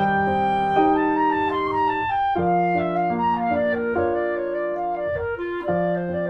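Instrumental background music: a slow melody of held notes, in the manner of a woodwind over piano.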